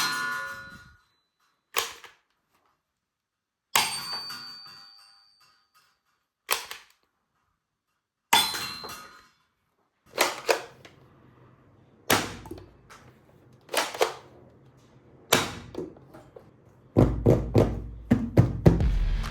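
Plastic toy pieces clicking and knocking in a series of separate sharp taps, some with a brief ring. The taps come about two seconds apart at first, then quicker, with a dense flurry near the end.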